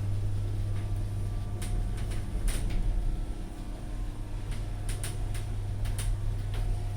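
Phoenix platform lift running as it travels up: a steady low hum from its drive, with a faint steady tone above it and irregular sharp clicks.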